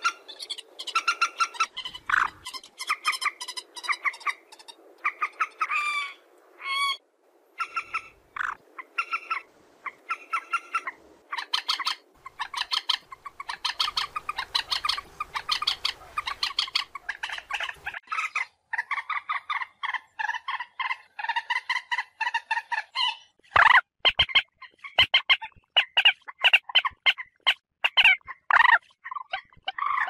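Common moorhen calling in rapid runs of short, chattering notes, several a second, with a few rising notes about six to seven seconds in. The calls grow louder and sharper over the last quarter.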